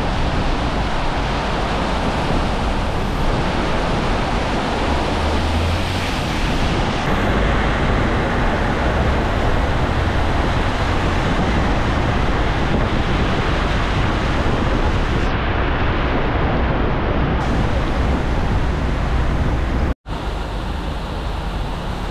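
Heavy rain pouring down, a dense steady hiss with a low rumble underneath. About twenty seconds in it cuts out for an instant and resumes a little quieter.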